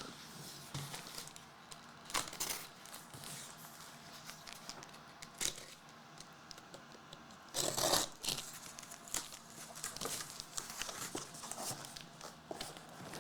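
Plastic wrapping being torn and crinkled off a sealed trading-card box, with clicks and rustles as the packaging is handled, and one longer, louder tear about eight seconds in.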